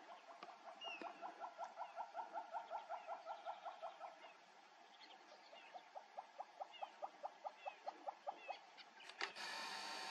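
A wild animal calling in a rapid series of short, evenly spaced notes, about five or six a second, for about four seconds; then, after a short pause, a second series of about three seconds. Near the end a steady noise cuts in and stops just as suddenly.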